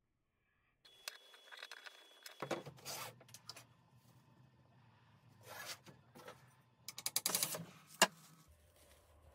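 Wooden hand plane being pushed along a hardwood board edge, each stroke a short scraping rasp as a shaving comes off, mixed with light handling clicks. A single sharp knock near the end is the loudest sound.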